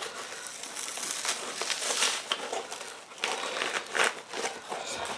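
Packing material in a mailed box crinkling and rustling irregularly while hands dig through it, with scattered small crackles.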